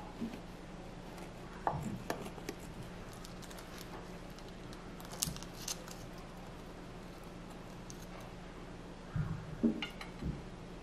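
Kitchen knife cutting soft cinnamon rolls in a metal baking pan, with a few scattered light taps and scrapes of the blade against the pan. Near the end a cut roll is set on a ceramic plate with a couple of soft knocks, over a faint steady low hum.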